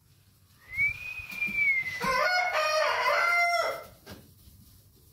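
A rooster crowing once, a long cock-a-doodle-doo of about three seconds, starting near the first second.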